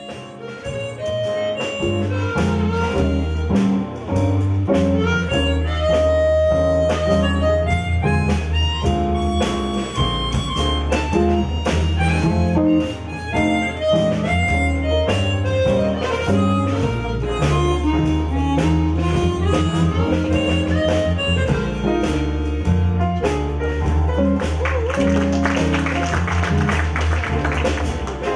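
Small jazz-blues band playing live: a harmonica leads over piano, double bass and drums, with a steady beat.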